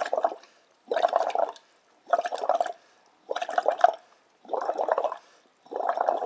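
Air blown through drinking straws bubbling into a shallow glass of purple chemical solution, in short puffs about once a second. The blowing is what is meant to turn the purple liquid white.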